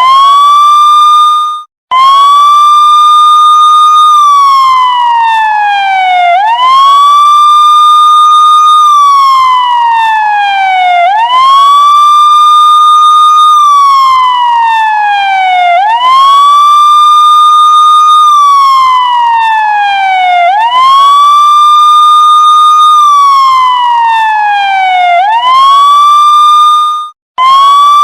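Police siren in wail mode: a tone that sweeps up quickly, holds high for about two seconds, then slides slowly back down, repeating about every four and a half seconds. It cuts out briefly twice, shortly after the start and near the end.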